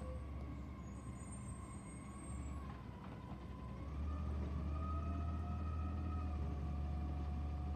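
Distant Autocar Xpeditor ACX side-loading garbage truck running, a steady low engine drone that grows louder about four seconds in, with faint wavering whines above it.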